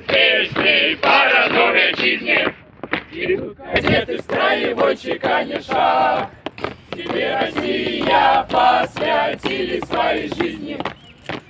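A group of young cadets singing a marching song in unison as they march, with a short pause about three seconds in; the sharp strikes of their steps on the road come through between the sung lines.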